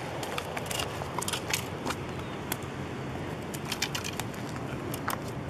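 A chain pickerel flopping on concrete while being unhooked: a string of short, sharp, irregular taps and clicks over a steady rushing background.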